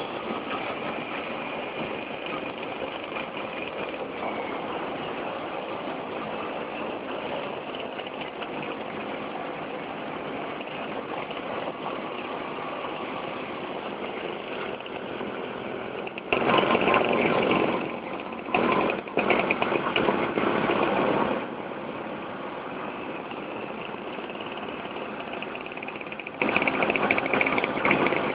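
Several two-stroke Vespa scooters running steadily as they ride in a group, heard from a moving scooter. The sound gets louder for several seconds about two-thirds of the way in and again near the end.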